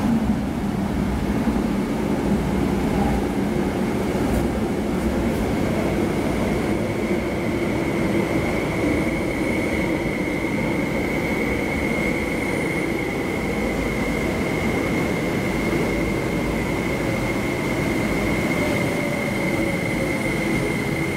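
MTR IKK-train electric multiple unit running into an underground platform and slowing as it pulls in: a steady rumble of wheels and motors, with a high whine from about four seconds in and a lower hum that sinks slightly near the end as it brakes.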